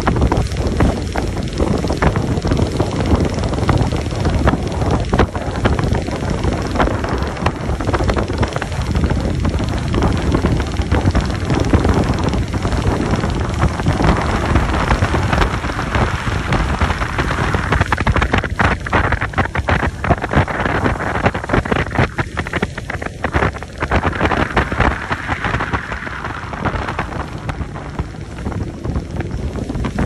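Wind buffeting the microphone aboard a boat under way, a steady low rumble, with a hiss of water that stands out in the second half.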